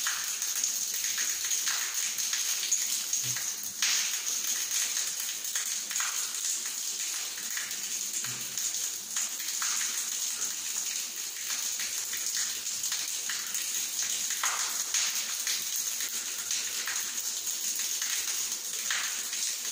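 Shower left running: a thin stream of water from a wall-mounted shower head splashing steadily onto a tile floor, an even hiss with irregular spatter.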